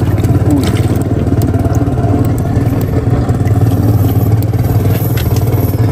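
Small boat engine running steadily at an even speed, a loud low hum with a fast regular beat and a few light clatters on top.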